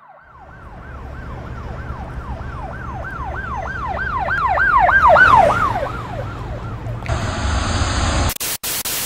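Siren sounding in fast falling sweeps, about three a second, over a low rumble; it grows louder to a peak about halfway, then drops in pitch and fades as it passes. Near the end a hiss comes in and an electronic dance track starts.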